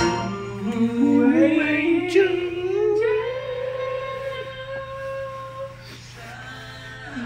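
Live amplified music from a solo singer with guitar: a long note glides upward, is held for a few seconds and fades, and a falling phrase begins near the end.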